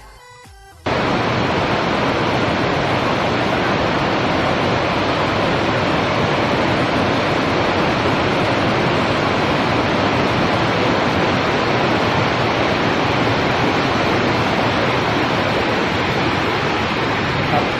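Quiet music gives way abruptly, about a second in, to a loud, steady rushing noise with no distinct tones or strokes in it.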